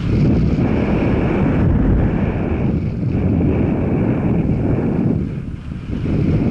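Heavy wind buffeting on the microphone over the low rumble of a moving vehicle, easing briefly about five and a half seconds in.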